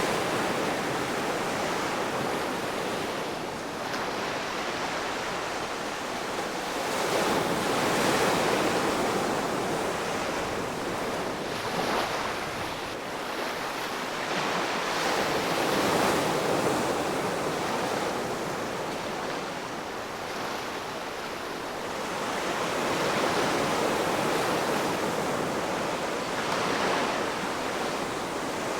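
Ocean waves breaking and washing on the shore, a continuous surf wash that swells and ebbs every several seconds.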